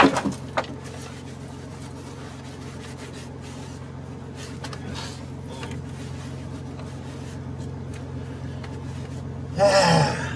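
Old truck's engine idling steadily. There is a loud knock right at the start and a brief squeaky, wavering sound near the end.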